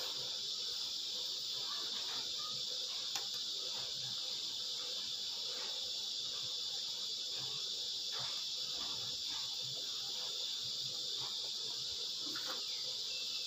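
Pot of stuffed bitter melon soup at a rolling boil, bubbling with faint scattered pops over a steady high hiss.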